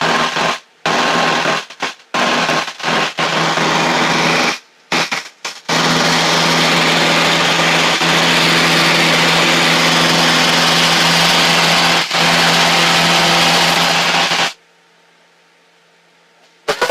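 Piper Warrior 161's four-cylinder Lycoming engine at full takeoff power, a steady drone with a loud rushing hiss, picked up through the cockpit intercom. The sound cuts out briefly several times in the first six seconds and drops away about 14.5 seconds in, leaving only a faint hum.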